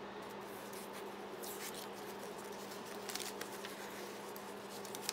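Sheets of old typed paper being handled and shifted by hand, a few brief soft rustles over a faint steady hum.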